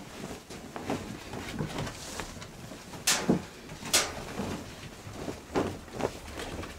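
Soft rustling and handling noises with several sharp knocks, the two loudest about three and four seconds in.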